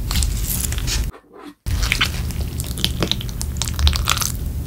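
Wooden spoon scooping and stirring thick curry rice in a ceramic bowl: wet squishing with light clicks of the spoon against the bowl. The sound cuts out for about half a second a little after a second in.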